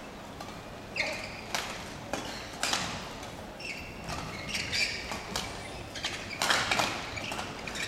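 Badminton play: short chirping squeaks of court shoes on the court mat and sharp racket hits on the shuttlecock, in irregular clusters, loudest about six and a half seconds in.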